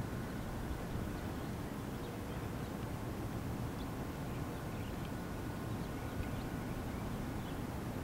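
Steady low outdoor rumble, with faint short bird chirps scattered through it.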